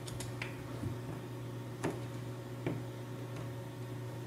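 A handful of scattered light clicks and taps from hands handling a small cardboard box and a pair of scissors while cutting its plastic tape seals, over a steady low hum.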